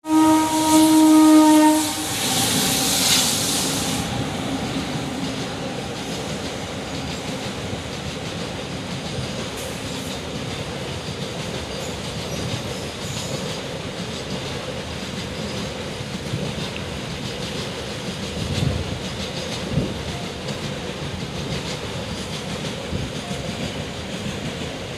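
A train horn sounds one note of about two seconds, then a container freight train rolls past with a steady rumble of its wagons on the rails. A couple of heavier knocks come about two-thirds of the way through.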